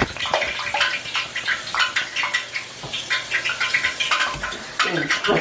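Hot cooking oil sizzling and crackling with many irregular pops as battered cookie dough fries in it.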